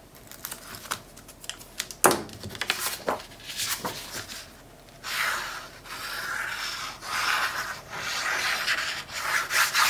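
Paper handling at a craft table: a few sharp crackles and scratches as tape backing is picked and peeled and the sheet of patterned paper is lifted. Then, from about five seconds in, long stretches of dry rubbing as the paper slides and is pressed down by hand onto cardstock.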